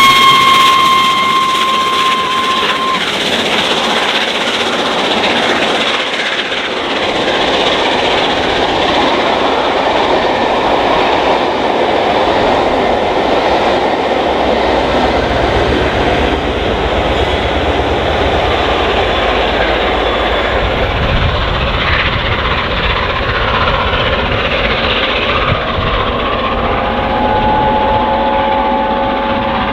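Peppercorn A1 Pacific steam locomotive 60163 Tornado passing at speed with a long train of coaches. A steady whistle sounds for the first few seconds. Then comes the continuous rumble and clatter of the coaches' wheels on the rails as the train goes by, growing deeper about halfway through.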